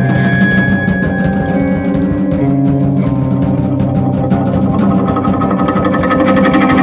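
Live instrumental jazz-rock band playing loudly: electric guitar and drum kit with fast cymbal strokes over sustained low notes.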